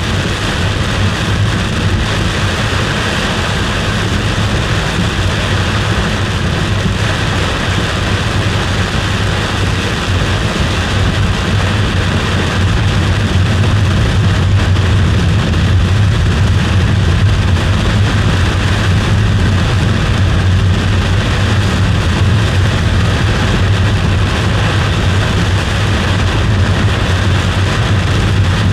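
Steady driving noise of a car on the road, heard from inside: a constant low hum with an even rushing noise over it.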